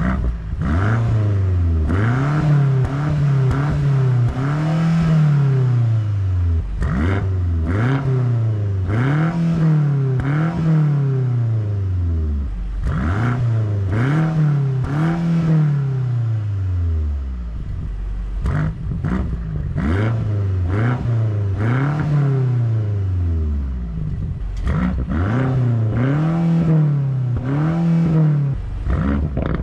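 BMW F90 M5 Competition's twin-turbo V8 revved while parked, heard at its quad exhaust tips: repeated quick throttle blips, each rising and falling in pitch, in groups of two or three with short pauses between. It begins in Efficient drive mode, as the revs are taken through the car's different modes.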